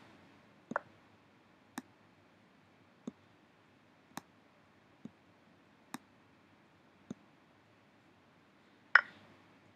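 Computer mouse clicking: single sharp clicks about once a second, with a louder click near the end.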